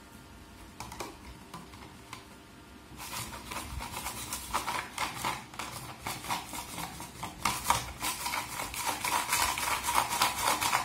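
Manual wire whisk beating a liquid mix of instant coffee, sugar and cold water in a plastic tub, its wires clicking and scraping against the plastic in rapid, even strokes. The whisking starts about three seconds in and gets louder.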